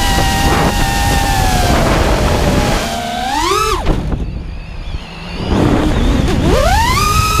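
Racing quadcopter's electric motors whining, the pitch rising and falling with the throttle. A little past three seconds in the whine climbs sharply, then drops away and goes quieter for a second or two while the throttle is cut during a flip. It rises steeply again to a high, steady whine near the end.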